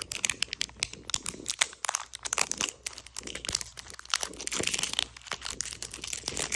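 Plastic and cardboard toy packaging being torn open and crinkled by hand, a dense run of irregular rustles, crackles and tearing sounds.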